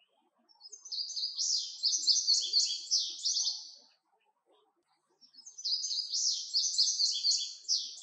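Male indigo bunting singing: two songs, each about three seconds long, made of a quick series of high, repeated notes, with a pause of about a second between them.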